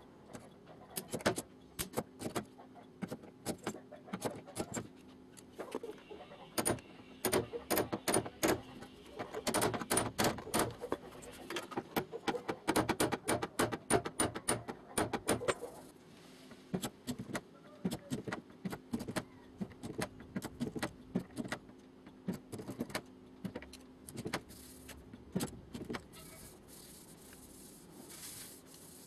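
Light hammer blows tapping on a car door's steel skin in quick runs of sharp, ringing knocks, densest and loudest through the middle stretch: panel-beating to straighten the door.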